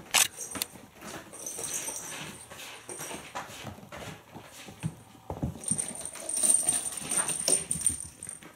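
Kittens scampering and wrestling on a hardwood floor: irregular scuffling and pattering of paws, with a sharp knock just after the start and a thump about five seconds in.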